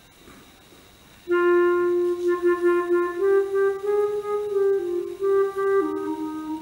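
Clarinet playing slowly. After about a second of quiet, a low held note enters and the line moves through a few neighbouring pitches, stepping up and then back down.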